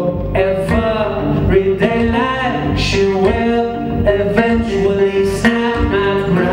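A man singing, accompanied on acoustic guitar.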